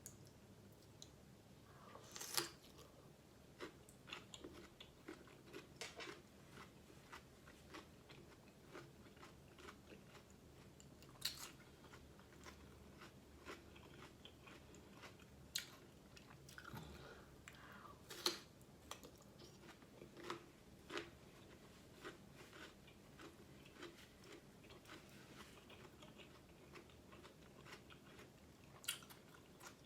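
A person eating a seafood boil close to the microphone: faint chewing and biting, with scattered sharp crunches and clicks, a few of them louder now and then.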